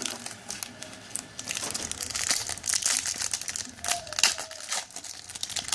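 A trading card pack's wrapper being torn open and crumpled by hand: an irregular run of crinkling and crackling, busiest in the middle.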